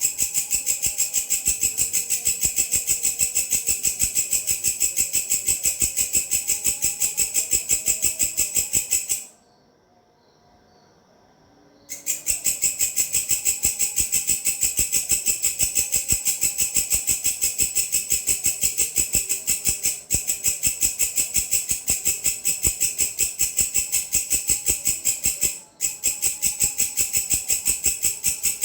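Grasshopper stridulating: a loud, high-pitched buzzing call of rapid, evenly spaced pulses. It falls silent for about three seconds partway through and breaks off briefly twice later on.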